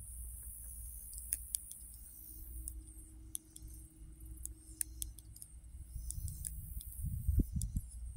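Metal knitting needles clicking and tapping against each other at an irregular pace as stitches are worked, over a low rumble that swells about seven seconds in.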